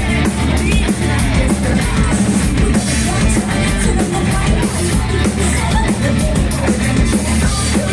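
Loud live rock band playing, with drum kit and electric guitars.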